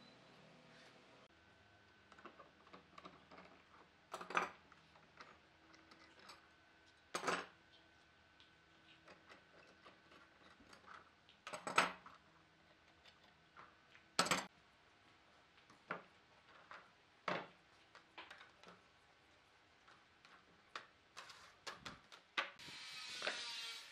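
Workbench handling sounds: sharp knocks and clicks of clamps and wooden pieces being moved and set down, about six louder knocks among many small ticks. Near the end comes a short scraping rustle as a stack of thin bent wooden strips is handled.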